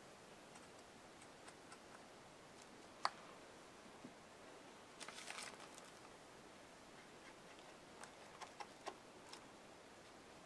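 Faint handling noises of small paint jars and a paintbrush on a craft table: one sharp click about three seconds in, a brief rustle and clatter around the middle, and a few light taps near the end, with quiet room tone between.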